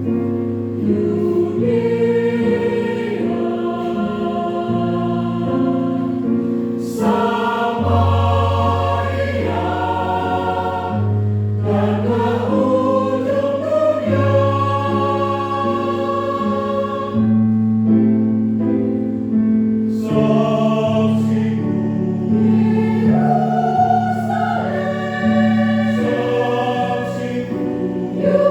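Church choir singing a hymn in several parts, holding sustained chords that change every second or two.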